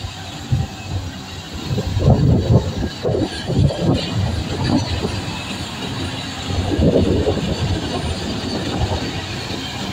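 SEM wheel loader's diesel engine running under load as the loader drives over rough dirt with a full bucket, a continuous low sound with uneven surges.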